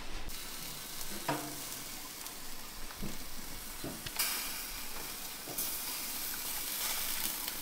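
Jerk chicken sizzling on a grill grate as it is basted with sauce from a brush; the sizzle grows louder about four seconds in.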